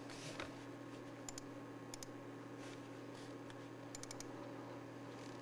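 Faint room tone with a steady low electrical hum and a handful of faint light taps, a pair about a second in, another pair at two seconds and a quick run of four near the four-second mark: fingers tapping a Wi-Fi password into an iPod touch's touchscreen.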